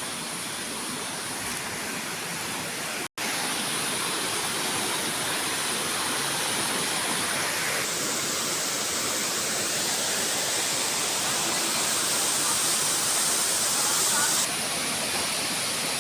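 Waterfall: steady rushing water. It breaks off for an instant about three seconds in and comes back slightly louder.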